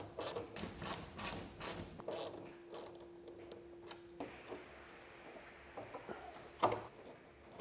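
A quick run of sharp mechanical clicks as a gas strut and its fasteners are worked into place on a 3D-printed part. A brief steady hum follows, then a single knock near the end.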